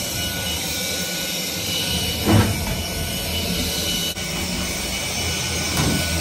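Ryobi cordless stick vacuum running steadily as it is pushed over a plywood floor, sucking up drywall sanding dust, with a brief louder burst of noise about two seconds in and a smaller one near the end.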